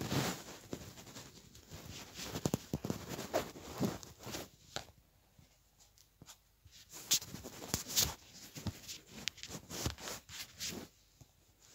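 Close handling noise: scattered soft clicks, taps and rustles as a hand moves a book and fleecy fabric brushes against the phone, with a quieter stretch in the middle.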